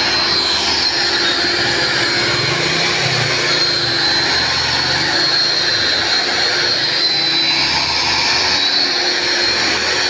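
Grinder running steadily against an iron tawa (griddle), grinding and polishing its surface: a steady high whine over a dense, gritty rasp.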